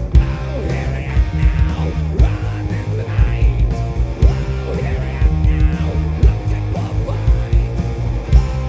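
A rock band playing live: electric guitar with bending notes over bass and drums, with a steady beat and no clear singing.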